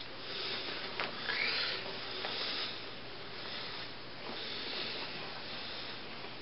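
Faint rustling and rubbing over a steady hiss, with a light click about a second in and a couple of softer ones later.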